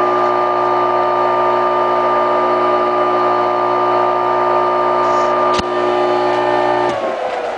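Craftsman 1-1/16 HP capacitor-start AC table-saw motor (Sears 62963) running steadily with an even hum and whine, with one sharp click about five and a half seconds in. About seven seconds in it is switched off, and its pitch falls as it coasts down.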